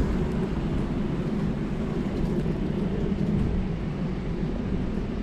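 Steady low rumble of road traffic, easing off slightly toward the end.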